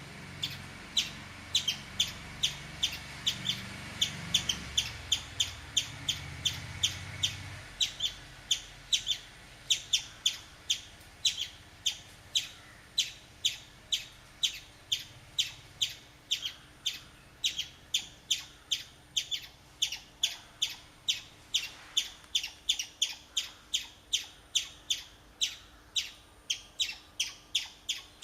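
Chipmunk calling a long run of sharp, high chips at an even pace of about two to three a second.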